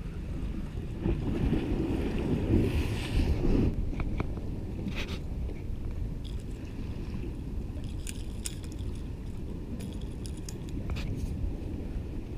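Wind buffeting the camera's microphone over the wash of sea waves against the rocks, swelling in a stronger gust from about one to three and a half seconds in. A few light clicks, from the fishing rod and spinning reel being handled, come around the middle and near the end.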